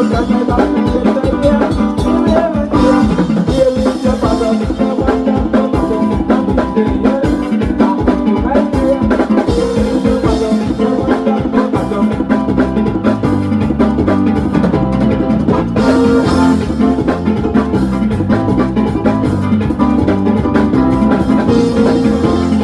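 Music with a drum kit and percussion keeping a steady beat; a heavier bass line fills in about halfway through.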